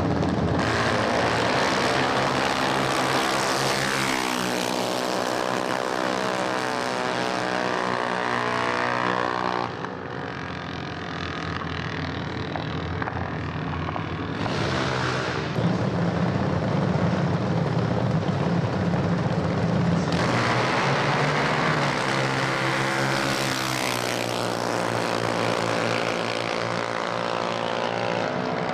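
Junior dragster's single-cylinder engine running at high revs down the drag strip, its pitch climbing as the car accelerates. The sound changes abruptly about ten seconds in, and near the end the engine pitch rises again.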